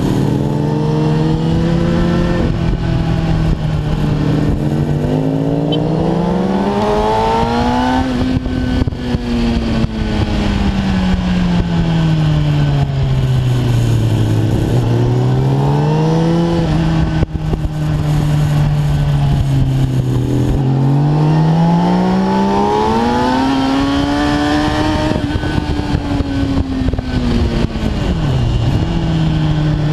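Kawasaki ZX-10R's inline-four engine, heard from the bike itself, with wind rush. The engine pitch climbs and falls as the rider opens and closes the throttle through the bends, twice rising and twice dropping back, with a sudden drop near the end.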